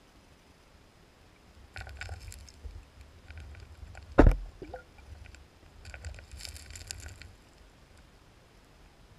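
Underwater sound of spawning sockeye salmon moving over a gravel streambed: two spells of stones clicking and scraping against each other, and one loud knock about four seconds in.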